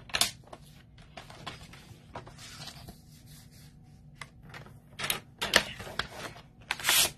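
Cardstock handled and tapped into place on a sliding paper trimmer, a scatter of short clicks and rustles, then near the end the trimmer's cutting head is run along its rail, slicing the card in a loud scrape of about half a second.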